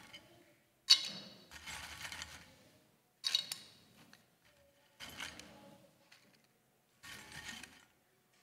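Four separate bursts of metallic clinking and scraping, each with a sharp start that dies away within about a second. They come from metal altar vessels being handled close to the altar microphone.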